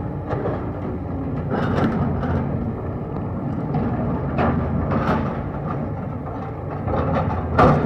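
JCB 3DX backhoe loader's diesel engine running steadily while it digs and loads mud, with several sharp knocks over it, the loudest near the end.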